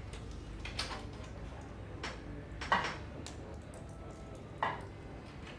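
Tablets being handled and pressed out of a blister pack: a few short, sharp crinkling clicks spaced irregularly, the loudest a little under three seconds in, over a faint low hum.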